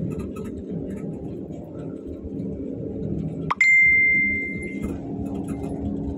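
Karosa C935E bus running along the road, a steady low engine and road rumble heard from inside the passenger cabin. About three and a half seconds in, a single loud bell-like ding rings out and dies away over about a second.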